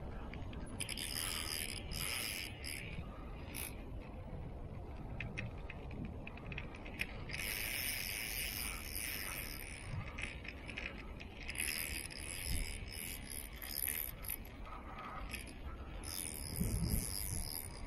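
Spinning reel being cranked in four bursts, its gears giving a high whirr, over a steady low rumble.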